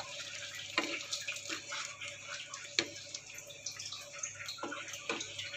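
Water being poured into a frying pan of onion-cashew paste and stirred in with a wooden spatula, with a steady watery splashing and a few short knocks of the spatula against the pan.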